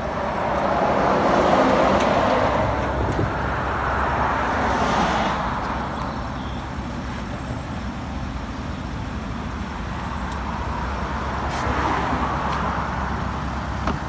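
Road traffic going past: several cars swell up and fade away one after another, over a steady low hum.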